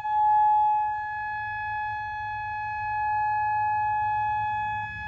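Tsunami warning siren sounding one steady, unbroken tone, its loudness slowly swelling and fading; it is the tsunami warning given after a magnitude 8 earthquake.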